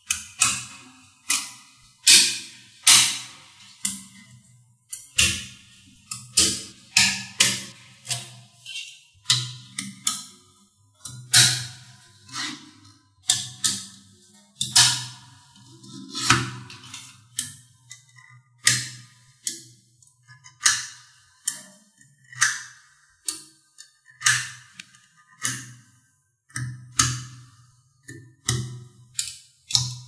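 Small magnetic balls clicking and clacking as blocks of them are snapped onto a structure of magnet balls: a string of sharp, irregular clicks, about one to two a second.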